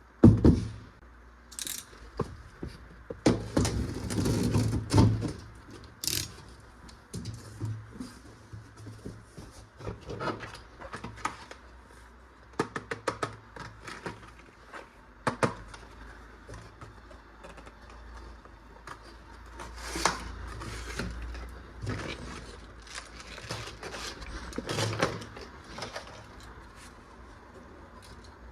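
Toy box and toy guns being handled and unpacked: irregular clicks, knocks and scrapes of hard parts and packaging, with a louder cluster about three to five seconds in.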